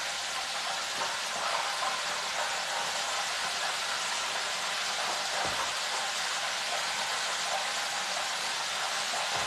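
Steady sizzling hiss of food frying: chicken in a countertop deep fryer and battered bread on an electric griddle. A faint soft knock about five and a half seconds in.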